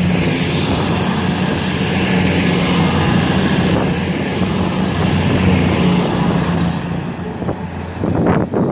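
Class 222 Meridian diesel multiple unit moving away past the platform, its underfloor Cummins diesel engines giving a steady drone over wheel and rail noise, with a thin high whine at first. The sound eases off in the last couple of seconds.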